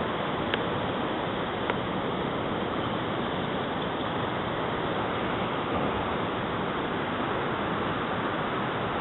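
Steady rush of creek water running over rocks, with two faint clicks in the first couple of seconds.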